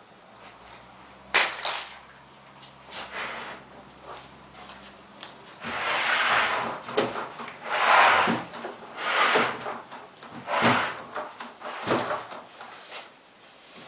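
Knocks and scraping of washing-machine parts being handled, with a sharp clack about one and a half seconds in, then several loud, rough scraping swells later on.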